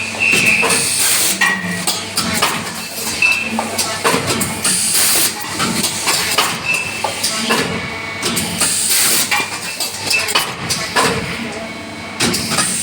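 Double-die hydraulic paper plate machine running: knocks and clatter of the pressing cycle, with a hiss of released air about every four seconds.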